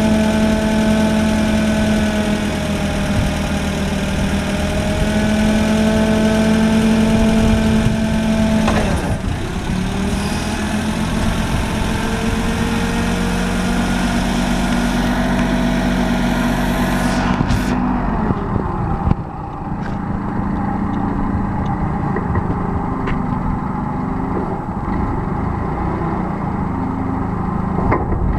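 Cat 2C6000 propane forklift's engine running, its pitch dipping and shifting now and then as it takes load while the forks and mast are worked. A high hiss over the engine cuts off suddenly about seventeen seconds in.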